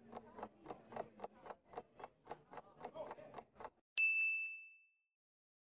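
Countdown-timer sound effect: a stopwatch ticking quickly, about five ticks a second, then a single bell ding about four seconds in that fades over about a second, signalling time's up.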